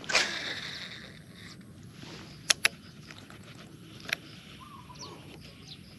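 Birds chirping in short rising-and-falling calls over open-field background. A sudden rushing burst right at the start fades over about a second and is the loudest sound, and sharp clicks come twice in quick succession about two and a half seconds in and once more about four seconds in.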